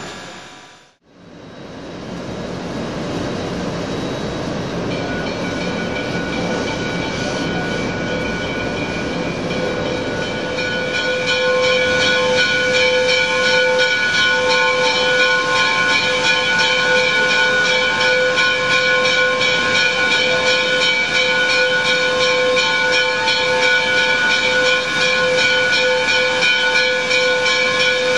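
Canadian National 2-8-2 steam locomotive #3254 hissing steam. From about five seconds in, a steady ringing tone of several held pitches rises over the hiss and grows louder about ten seconds in.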